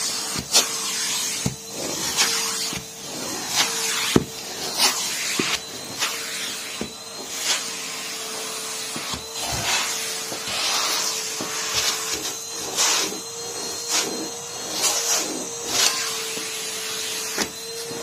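Numatic Henry vacuum cleaner running with a steady motor whine and suction hiss, with frequent irregular knocks and clicks as its metal wand is moved about.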